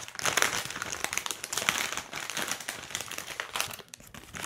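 Foil-lined bag of barbecue potato chips crinkling as it is pulled open and spread flat, a dense run of sharp crackles that thins out near the end.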